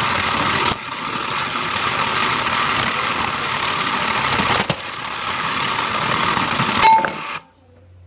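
Toy remote-control car running, its small electric motor and gears making a steady whirring rattle, which cuts off suddenly about seven seconds in.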